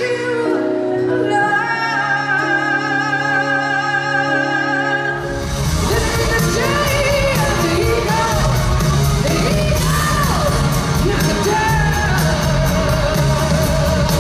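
Live rock concert audio. A female lead singer holds long sung notes over a sparse backing, then about five seconds in the sound cuts abruptly to the full band playing loud hard rock with electric guitar and a steady beat.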